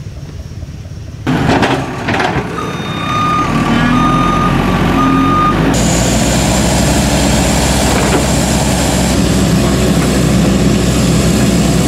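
Diesel engines of a JCB 3DX backhoe loader and a farm tractor running steadily, with a high beeping tone sounding in the first half.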